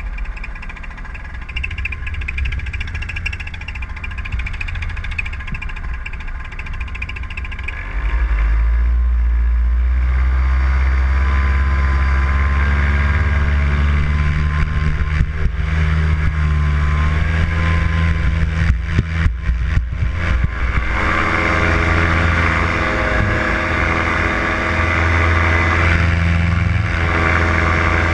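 Solo 210 single-cylinder two-stroke paramotor engine and propeller running at low throttle, then opened up suddenly about eight seconds in, climbing in pitch to full power for the take-off run and holding steady there.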